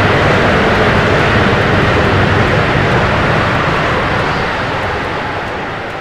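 A loud, steady roaring rush of noise, a whooshing sound effect like a jet or wind, fading out over the second half.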